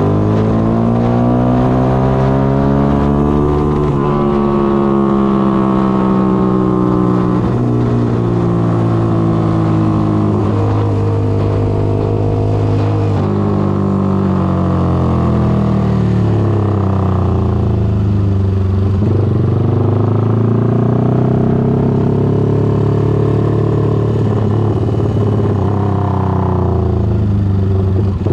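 Yamaha Y15ZR's single-cylinder four-stroke engine running under way, its pitch rising and falling several times as the rider accelerates and eases off.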